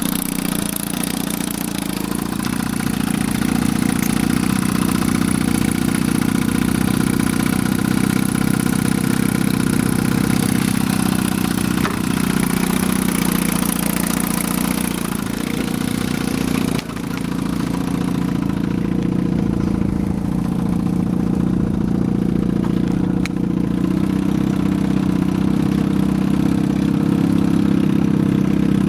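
Evinrude outboard motor running steadily at a constant speed.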